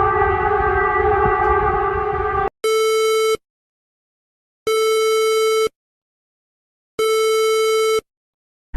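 Emergency alert alarm tones: a steady multi-pitched tone over a hiss that cuts off suddenly after about two and a half seconds, followed by three identical beeps, each about a second long and about two seconds apart, with dead silence between them.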